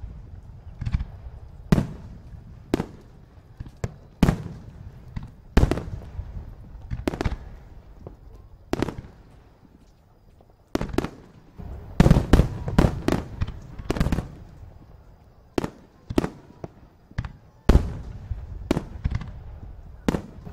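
Aerial fireworks going off: a string of sharp booms at irregular intervals. After a short lull near the middle there is a rapid cluster of them, then single booms again.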